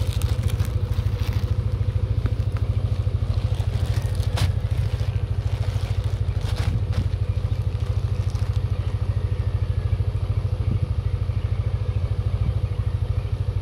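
Motorcycle engine idling with a steady rapid putter. A plastic courier mailer crackles briefly in hand a couple of times around the middle.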